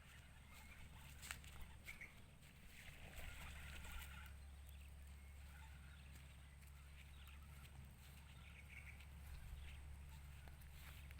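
Near silence: faint outdoor ambience with a steady low hum and scattered faint, short chirps.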